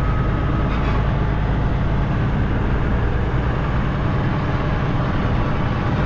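Semi truck's diesel engine and road noise, a steady rumble heard from inside the cab as the truck moves.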